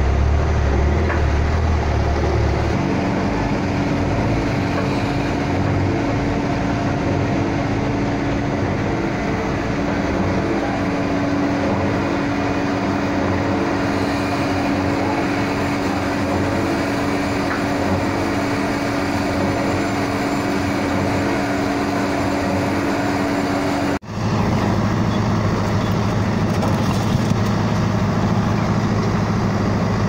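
Heavy diesel construction machines running one after another: a concrete transit mixer truck's engine for the first few seconds, then a truck-mounted concrete boom pump running with a steady hum for about twenty seconds. After a sudden cut, an ACE backhoe loader's diesel engine runs steadily.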